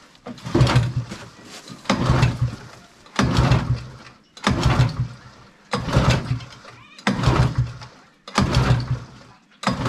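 1968 Larson Hawk snowmobile's two-stroke engine being pull-started about eight times, one pull roughly every second and a quarter, each a sharp whirring rush that dies away. The engine turns over but does not fire: it is not yet drawing fuel from the tank.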